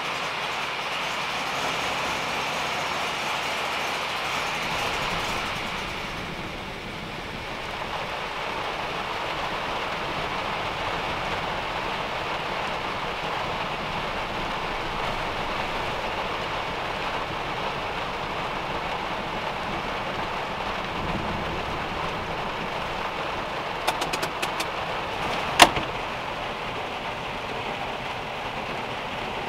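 Steady rain falling on a small car's roof and the wet ground around it, with a few sharp taps and then one loud knock about four seconds before the end.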